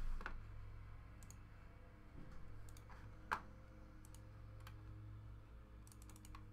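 A few light clicks at uneven intervals, the sharpest a little past three seconds in, over a faint steady low hum.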